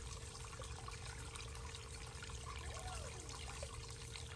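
Water pouring steadily out of the end of a 3/4-inch PVC discharge line fed by a 1.5 hp sump pump, with a faint steady tone underneath.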